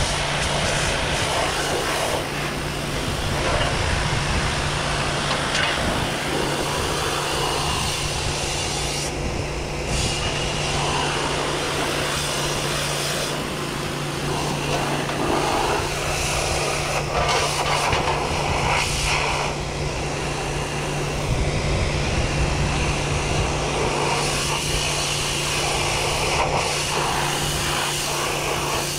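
Pressure washer running steadily, its high-pressure water jet hissing and spattering against a sheet-metal tractor panel. The jet is blasting loosened rust and paint off the panel after electrolysis rust removal.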